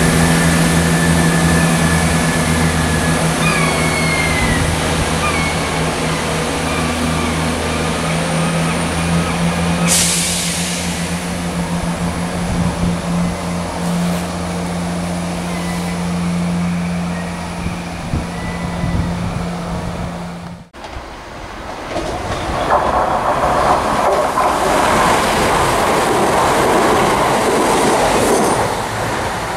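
Class 170 Turbostar diesel multiple units: first a unit's diesel engines running with a steady low hum while its wheels squeal faintly on the curved track, with a short hiss about a third of the way in. After a sudden cut, another Class 170 runs past close by with loud rolling noise.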